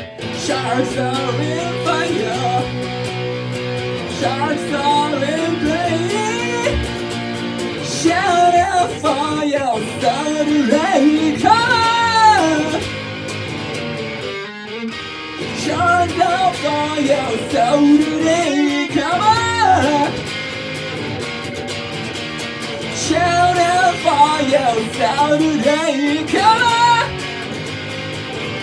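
A man singing to his own electric guitar, a Telecaster-style solid-body. The guitar plays alone for the first several seconds, then sung phrases come in three stretches over it.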